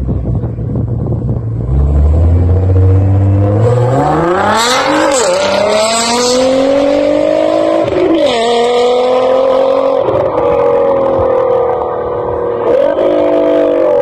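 2017 Nissan GT-R's twin-turbo V6 with an Armytrix valvetronic exhaust holding steady revs, then launching and accelerating hard. The engine note climbs steeply and drops at each of several upshifts.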